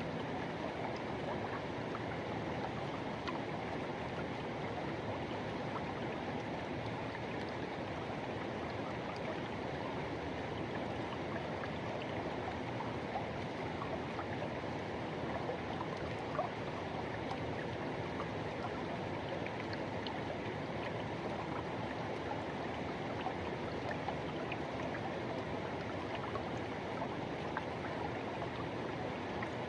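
Forest river water rushing in a steady, unbroken wash.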